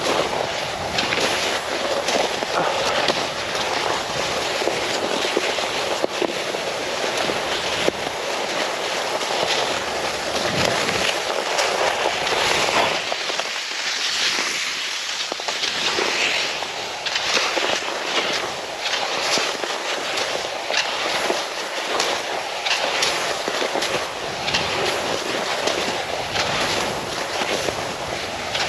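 Cross-country skis scraping and gliding over hard snow, a continuous rasp broken by repeated stroke-by-stroke scrapes.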